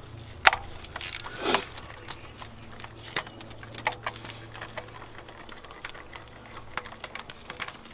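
Ratchet wrench with a spark plug socket clicking in runs of quick light ticks, with a few sharper knocks near the start, as a spark plug is unscrewed from the cylinder head.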